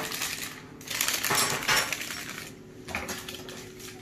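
Kitchenware clattering and scraping on a worktop, loudest between about one and two seconds in.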